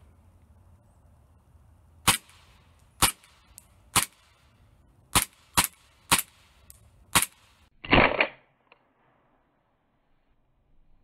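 WE-Tech 1911 gas blowback airsoft pistol, run on propene, firing seven single shots at an uneven pace about a second apart, each a sharp crack. About eight seconds in comes one duller, noisier burst lasting about half a second.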